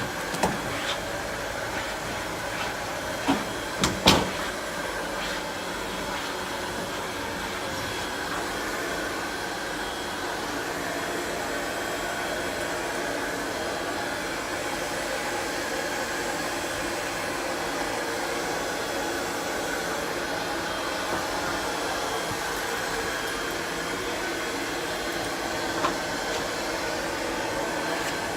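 Heat gun blowing steadily, with a few sharp knocks of handling near the start and one near the end.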